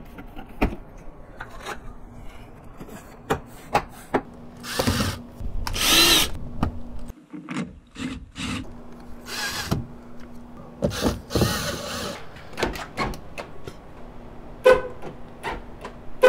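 Cordless drill/driver running in several short bursts, one with a rising whine, as it drives the screws into the plastic door panel. Between the bursts come clicks and knocks of the trim panel being pressed and snapped into place.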